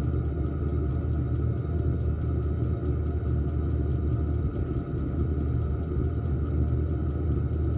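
Diesel air heater running steadily on its lowest setting after firing up: a steady low combustion and exhaust rumble with a steady whine from its fan on top.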